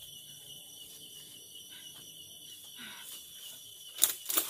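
Night insects chirring steadily, with two short, loud knocks or rustles close together near the end.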